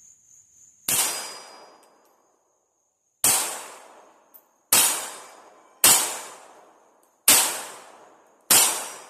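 Six shots from a Beretta Model 1934 pocket pistol in .380 ACP, fired singly at uneven intervals of one to two and a half seconds, each trailing off over about a second.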